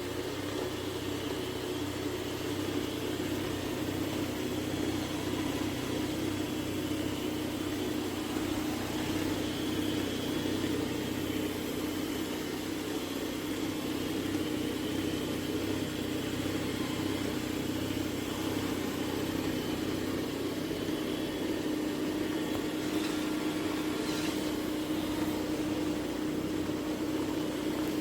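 Robot vacuum base station running with a steady mechanical hum and a constant low drone. A couple of light clicks come a few seconds before the end.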